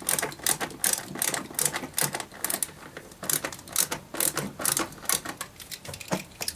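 Screwdriver tightening Phillips screws into a car door panel: a quick, uneven run of sharp clicks, a few a second, thinning out near the end.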